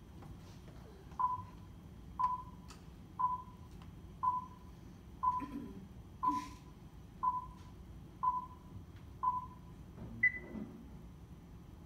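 Video countdown leader beeping through a classroom's speakers: nine short beeps, one a second, then a single higher-pitched beep as the count reaches one.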